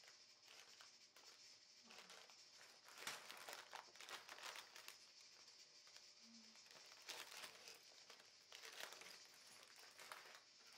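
Faint crinkling of clear plastic bags full of toy building bricks being handled, in several separate bursts.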